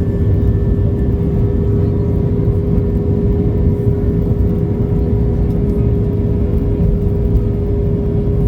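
Jet airliner cabin noise: a steady, loud drone of engines and rushing air with a constant hum over a deep rumble.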